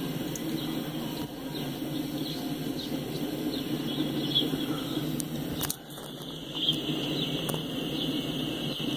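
Empty coal hopper cars rolling past on the rails: a steady rumble of steel wheels, with faint high squeaks over it. A sharp click comes just before six seconds in, and the sound dips for a moment after it.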